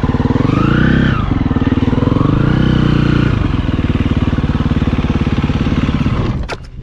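Motorcycle engine running, revved up and back down twice, then switched off near the end.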